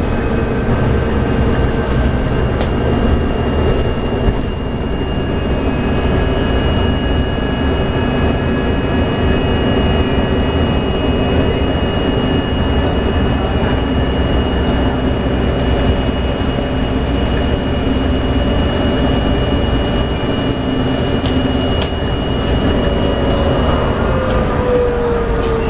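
Cabin noise aboard a 2011 New Flyer D60LFR articulated diesel bus cruising on a freeway: the steady drone of its Cummins ISL9 diesel engine and Allison B500R transmission mixed with tyre and road rumble, with a steady high whine. Near the end a whine drops slightly in pitch.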